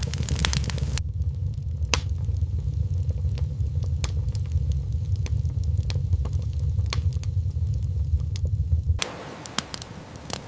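Campfire crackling, with scattered sharp pops over a low steady rumble. The rumble cuts off about nine seconds in, leaving only the crackles.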